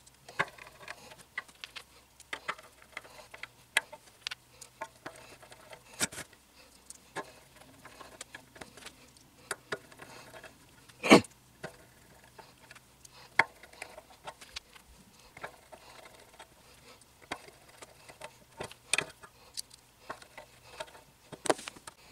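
Small screws being driven by hand into the frame of a resin printer vat to refit the FEP sheet. Scattered light clicks and taps of the screwdriver and screws, with a sharper knock about eleven seconds in.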